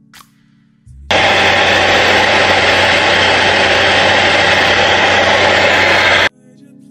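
Handheld hair dryer running on high, a steady rush of air over a motor hum, blowing on a glued wig cap to dry it. It starts suddenly about a second in and cuts off about half a second before the end.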